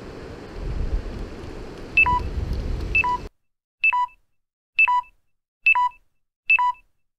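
Electronic beeps, each a short high pip followed by a lower one, repeating about once a second, six times. A steady outdoor rushing noise of wind and water runs under the first two and cuts off suddenly about three seconds in, leaving the later beeps over silence.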